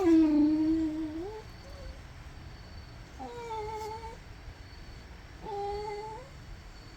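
Domestic cat meowing: three drawn-out calls, the first the loudest and longest at about a second and a half, then two shorter ones a couple of seconds apart.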